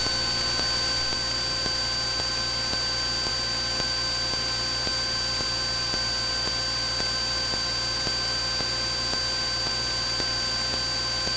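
Steady static hiss and hum of a light aircraft's radio and headset audio feed, with a faint thin whine held on one pitch and a low drone underneath, after a short click at the very start.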